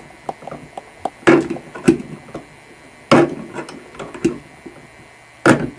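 Pliers knocking and clicking against a faucet aerator while gripping and turning it to unscrew it: about five sharp knocks roughly a second apart, with lighter clicks between.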